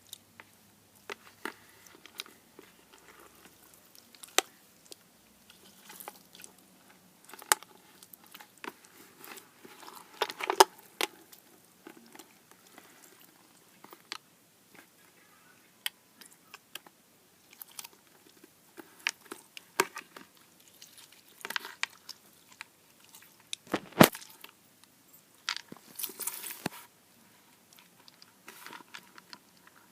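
Slime being squished and handled, giving irregular wet crackles and sharp popping clicks at uneven intervals, with a couple of louder pops about ten seconds in and again near twenty-four seconds.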